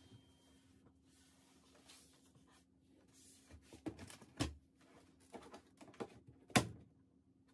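Objects being handled and set down on a desk: light rustling with several short knocks, the loudest about six and a half seconds in, over a faint steady hum.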